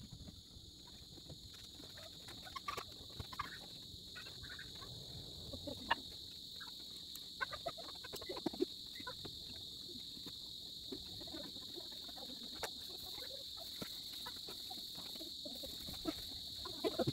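Steady high-pitched insect chirring, with scattered faint clicks and brief animal calls.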